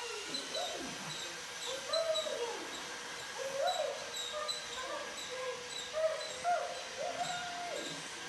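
A baby cooing and babbling in a string of short rising-and-falling sounds, over the faint steady running of a battery-powered toy train circling its track.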